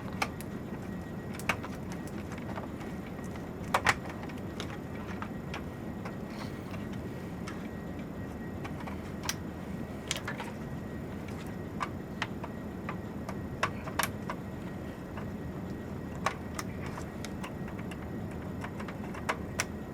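Scattered light clicks and taps, about a dozen spread irregularly with a quick double click about four seconds in, from cable connectors being plugged into a server backplane and handled, over a steady low room hum.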